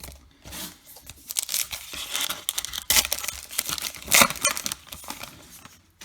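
A baseball card pack wrapper being torn open and crumpled, with irregular crinkling and a few sharp rips about three and four seconds in.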